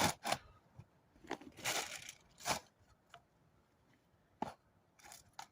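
Food packets being torn open and crinkled by hand: a run of short rips and rustles with gaps between them.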